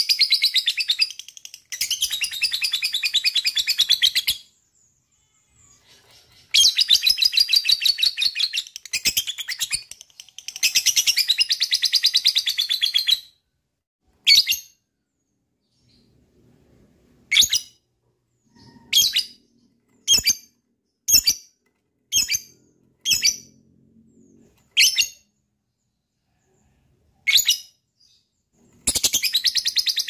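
Lovebird singing its long chattering 'ngekek': runs of very rapid, high chatter lasting a few seconds each, four in the first half. Then comes a string of about a dozen short sharp chirps, and a new run of chatter starts near the end.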